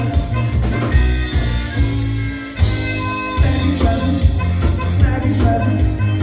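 Band music playing: a rock-ska track with a prominent bassline and a steady drumbeat.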